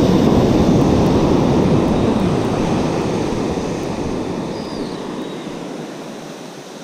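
Ocean surf breaking and washing up a sandy beach, with wind rumbling on the microphone; loud at first and fading gradually, the deepest rumble dropping away near the end.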